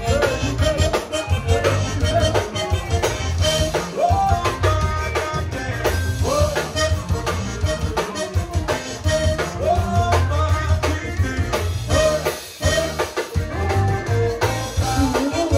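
Zydeco band music: drums and bass keep a steady beat under a melody line.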